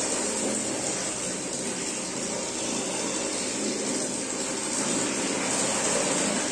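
Steady rush of running water, as from a tap filling a plastic bucket, with a faint steady hum underneath.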